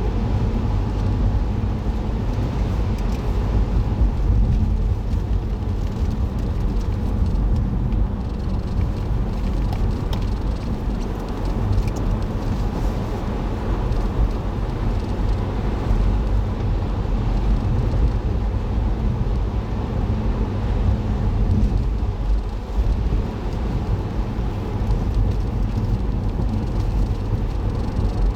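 A car being driven, recorded from inside the cabin: a steady low rumble of engine and tyre road noise that stays even throughout.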